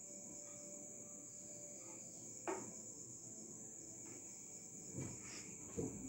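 Crickets trilling steadily in the night background, with a few light knocks and thuds as kitchenware is handled.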